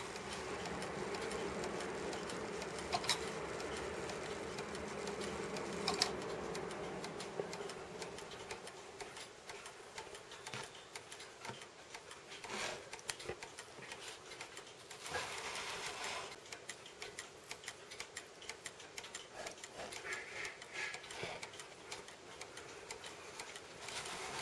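1910s Junghans wall-clock striking train running: the gears and fly whir steadily, with sharp clicks about every three seconds, and the run stops about seven seconds in. Quieter, irregular ticks and clicks from the movement follow.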